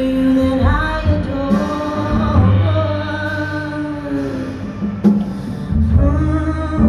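Female jazz vocalist singing slow, long-held notes over a double bass accompaniment, in a live performance.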